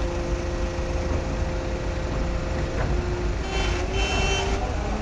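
Heavy diesel engine of a concrete boom placer running steadily with a deep rumble, its pitch shifting slightly about three seconds in. A high-pitched beeping sounds briefly around three and a half seconds in.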